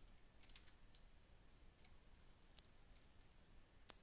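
Near silence with a few faint, scattered clicks of a computer mouse, a slightly louder one near the end.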